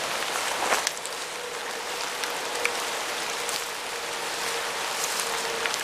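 Steady hiss of light rain falling on leaves in the woods, with a few scattered irregular ticks.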